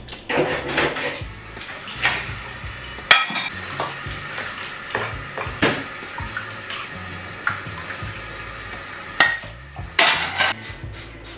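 Plates and metal pots clattering in a stainless steel kitchen sink as dishes are washed by hand: irregular clinks and knocks, a few sharper than the rest.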